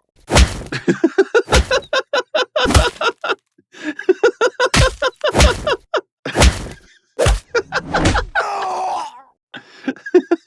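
Fight sound effects: about six heavy punch impacts with short grunts and groans between them, then a falling pained cry about eight and a half seconds in. Quick short vocal bursts follow near the end, the start of a laugh.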